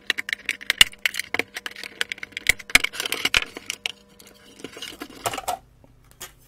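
Plastic housing of a cholesterol analyser being handled and prised apart: a rapid run of sharp clicks and knocks of plastic parts against each other and the bench, which stops about five and a half seconds in.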